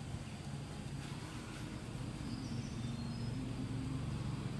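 Outdoor ambience: a steady low hum under a light hiss, with a few faint, high bird chirps about halfway through.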